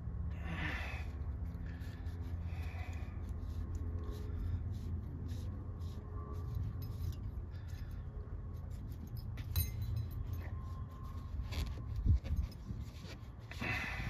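Light clicks and clinks of small metal parts from a disassembled Saginaw power steering pump being handled, over a steady low hum. A couple of louder thumps come near the end.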